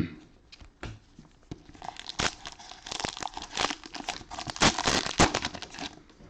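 Cellophane wrapper of a trading-card cello pack crinkling and tearing as it is opened, a few light clicks first, then a dense stretch of crackling about two seconds in that stops near the end.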